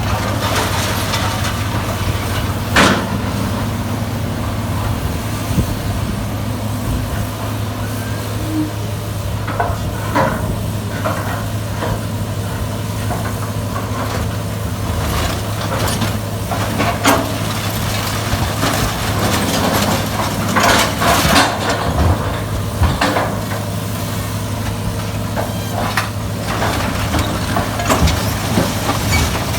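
Sierra 656SL metal shear baler running: a steady low machine drone with irregular metallic clanks and bangs, several of them close together in the second half.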